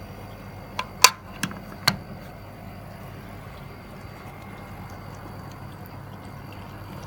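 Pool heat pump running with a steady hum, and four sharp clicks in quick succession about a second in.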